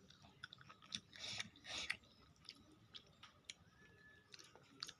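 Faint mouth sounds of raw napa cabbage being chewed: small wet clicks throughout, and two louder chews between one and two seconds in.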